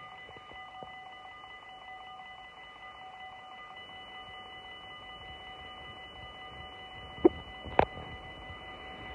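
Dutch level-crossing warning bell ringing continuously, a steady ringing tone at several pitches at once. About seven seconds in come two sharp knocks half a second apart.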